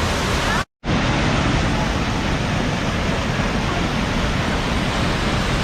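Steady, loud rushing of the Thirparappu waterfall, the Kodayar River pouring over its rocky bed, cut off for a split second to dead silence less than a second in.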